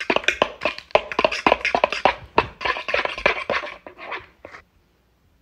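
Hand whisk beating eggs and vanilla in a plastic mixing bowl: fast, irregular clicking and scraping strokes that stop about four and a half seconds in.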